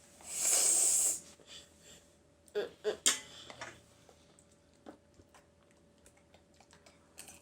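Mealtime mouth and table sounds. A loud, breathy rush of air lasts about a second near the start, a couple of short mouth or voice sounds come about three seconds in, and then sparse light clicks follow, like utensils on tableware.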